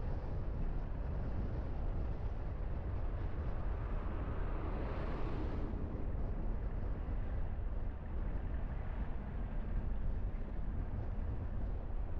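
A car driving along a road: a steady low rumble of engine and tyre noise. About four seconds in, a rushing noise swells and then stops fairly sharply around six seconds.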